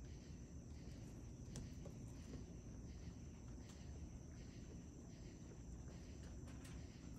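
Faint night insect chorus, crickets or katydids, pulsing a little under twice a second, with a few soft clicks from raccoons feeding on the wooden deck.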